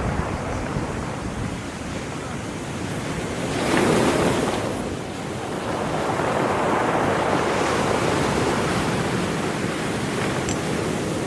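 Sea surf breaking on the shore, with one wave crashing loudly about four seconds in and a longer wash building after it; wind buffets the microphone.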